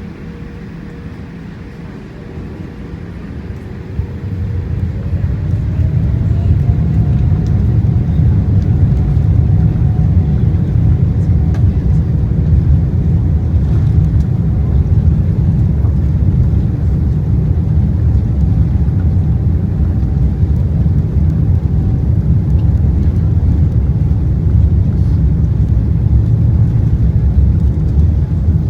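Jet airliner heard from inside the cabin as the engines spool up for takeoff: a low, steady rumble that swells sharply about four to six seconds in, with a faint rising whine, then holds loud.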